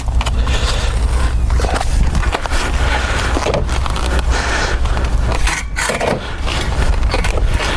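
Wood mulch being raked smooth: a continuous run of scraping and crackling strokes as it is dragged across the bed, over a steady low rumble.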